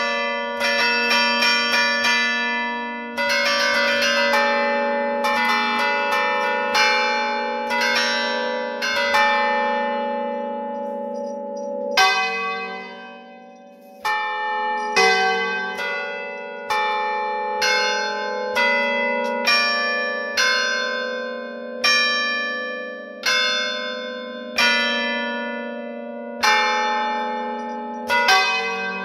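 A set of bronze church bells rung from a keyboard of wooden levers, heard up close inside the bell chamber. A quick, dense run of strokes plays a tune over the bells' long, overlapping hum. From about twelve seconds in, the strokes slow to single strikes roughly once a second.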